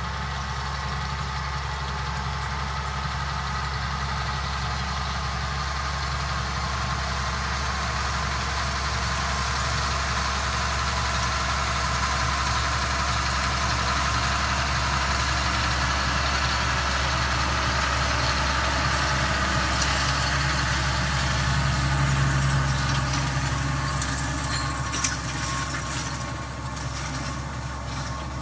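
Claas tractor's diesel engine running steadily as it pulls a tedder turning cut grass, growing louder as it comes close and fading again near the end. A single short click near the end.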